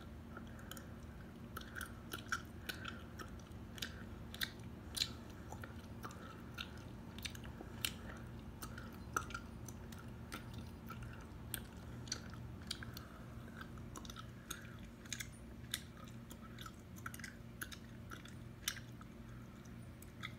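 Close-miked gum chewing: wet, irregular mouth clicks and smacks, a couple a second, over a faint steady low hum.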